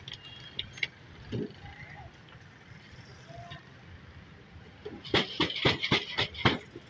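French fries tossed in a steel bowl: a quick run of sharp clattering clicks for about two seconds near the end, over a low steady background hum.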